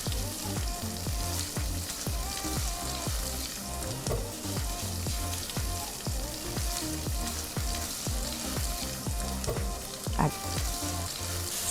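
Chicken and vegetables sizzling in ghee in a cooking pot while being stirred, with short scraping clicks, over background music.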